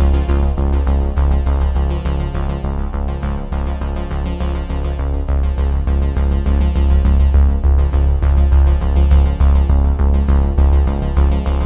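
Electronic background music: sustained synthesizer tones over heavy bass, with a steady beat.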